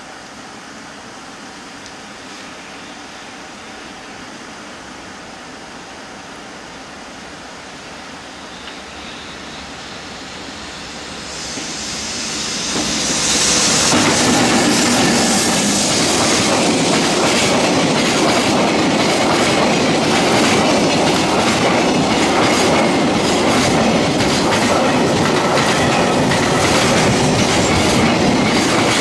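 EH500 electric locomotive approaching and passing close by: faint at first, it grows louder from about eight seconds in and is loudest around halfway. A long train of container wagons then rolls past, its wheels clattering steadily over the rail joints.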